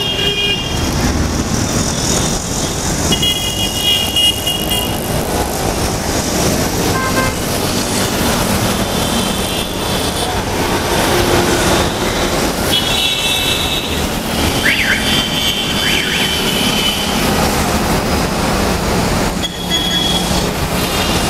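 Busy city road traffic: cars, scooters and motorcycles running past, with repeated vehicle horn honks, several of them held for a second or two.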